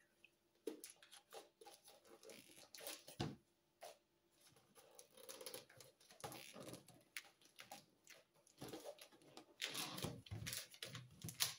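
Faint handling of a shrink-wrapped stack of clear plastic storage boxes: scattered clicks, taps and rustling of the plastic wrap as it is cut and pulled off, busier in the second half.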